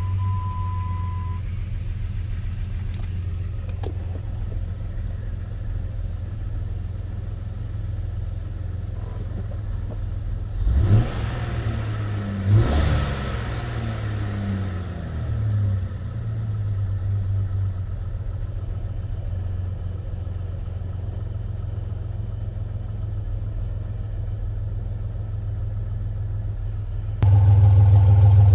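Jeep Grand Cherokee 4.0 L inline-six running at a steady idle, revved twice in quick succession about eleven seconds in, the revs dropping back to idle over a few seconds. A brief high beep at the very start, and the engine sound gets louder about a second before the end.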